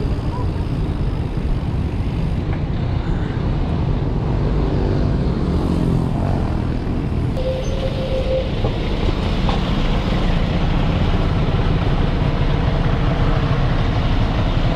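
Steady city road traffic noise with a constant low rumble, heard while riding a mountain bike among the traffic.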